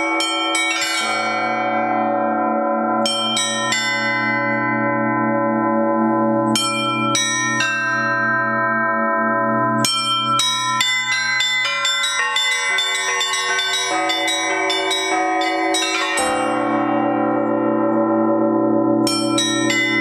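Russian Orthodox festive bell peal (prazdnichny zvon) played by one ringer working the clappers by rope: quick clusters of strikes on the small bells over the long, ringing hum of a large bell, which is struck about a second in and again near the end.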